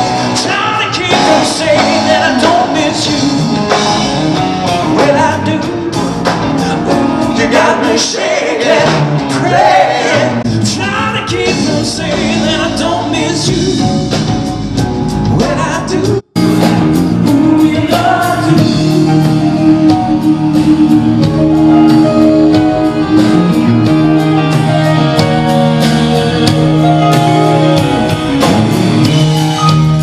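Rock band playing live on stage with a lead singer, electric guitars, bass, drums and keyboards. About halfway through the sound cuts out for an instant, then the band carries on with long held chords.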